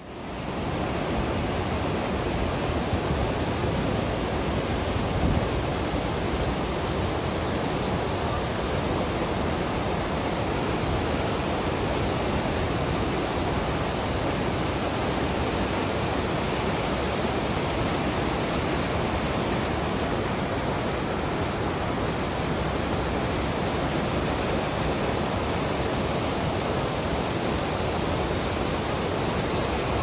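The Rhine Falls, a broad river waterfall in heavy flow, making a steady, even roar of plunging and churning water.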